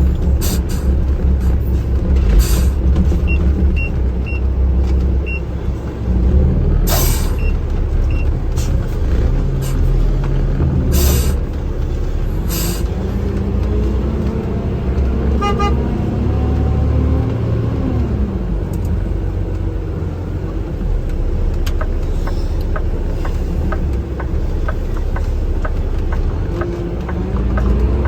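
Heavy truck's engine and road noise heard from inside the cab while driving, the engine note rising and falling as it changes speed or gear, with a few sharp knocks.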